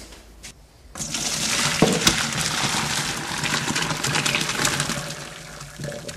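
Hot cooking water poured from a stockpot through a stainless steel colander into a sink, draining boiled red potatoes: a splashing rush that starts about a second in and tapers off toward the end, with a brief knock about two seconds in.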